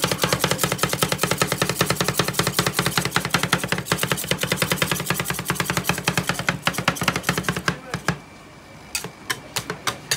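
Two metal spatulas chopping rapidly on a steel rolled-ice-cream cold plate, clacking many times a second as they chop Oreo pieces into the ice cream mix. The chopping stops about eight seconds in, then a few separate taps follow near the end.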